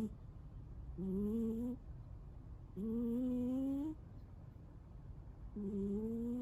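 A sleeping Munchkin cat snoring heavily: about three drawn-out snores a couple of seconds apart, each a pitched buzzing tone that rises slightly as it goes.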